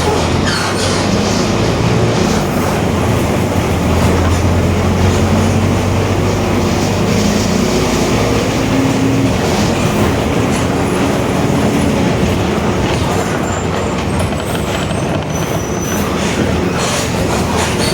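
Mercedes-Benz OF-1721 BlueTec 5 bus under way: steady engine and road rumble with a droning tone that rises a little in the middle, the rear differential growling.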